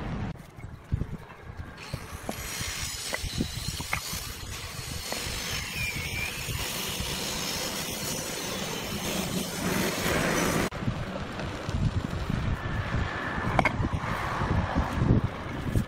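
Steady outdoor background noise with a few light knocks from concrete paving blocks being set by hand on sand. A hissing layer cuts off suddenly about eleven seconds in.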